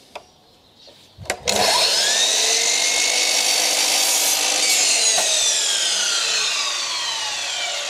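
Mitre saw switched on with a click about a second and a half in, its pitch rising as the blade spins up, then cutting a 45-degree mitre through a length of picture-frame moulding. About three seconds later the pitch falls steadily as the released blade winds down.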